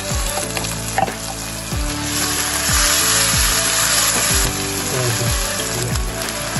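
Ground onion, ginger and garlic paste sizzling as it fries in hot olive oil, the hiss strongest in the middle. Background music with a steady beat plays underneath.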